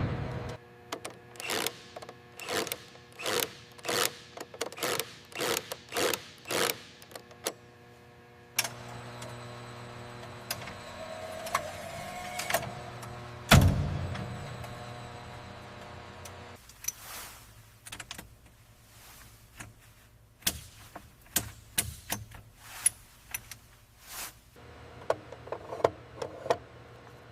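A run of sharp mechanical clicks and taps, about two a second, gives way to a steady mechanical hum with one heavy thud partway through, then scattered clicks again.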